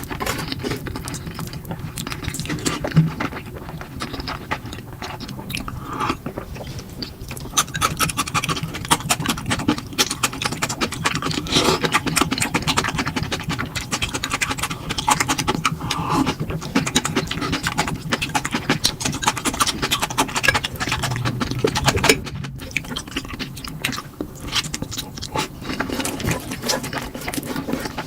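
Close-miked eating of instant noodles: wet slurps, smacks and chewing clicks follow one another densely throughout, broken by a momentary gap about 22 seconds in.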